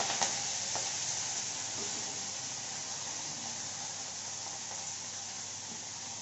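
Hot oil sizzling as freshly chopped, wet spinach leaves are tipped into a steel kadhai: a steady hiss that eases slightly as it goes on, with a couple of faint clicks in the first second.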